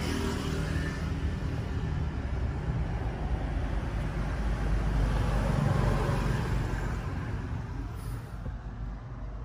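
Road traffic noise: a steady low rumble that swells around the middle and eases off near the end.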